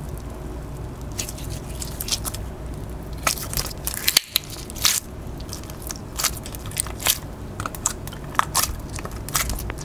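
Slime being played with by hand: an irregular run of small crackles and clicks, with a few louder pops a little before the middle.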